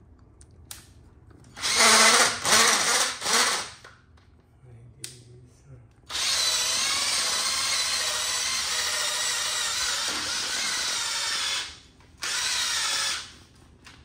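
Electric drill fitted with a sanding disc, sanding floor tile: three short bursts of running about two seconds in, then a steady run of about five seconds, and one last short burst near the end.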